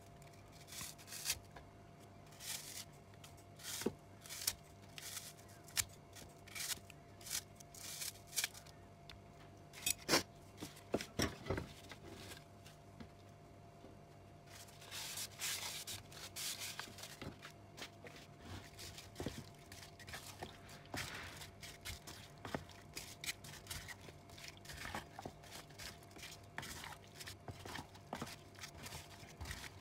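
Kitchen scissors snipping apple into chunks over a plastic food container, one sharp snip after another. About halfway there is a rustle, followed by soft rubbing and small clicks as a hand mixes the apple into the marinated meat in the container.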